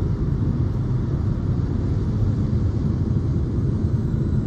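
Steady low rumble of road and tyre noise heard inside a car's cabin while driving on a highway.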